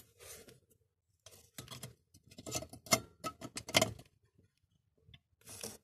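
An H4 halogen bulb's metal base being handled and seated into a headlight reflector: a run of small clicks and scrapes, densest and loudest from about one and a half to four seconds in, with short rustles near the start and end.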